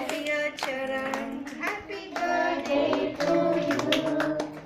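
Children singing together and clapping along, the claps keeping a steady beat of about two a second.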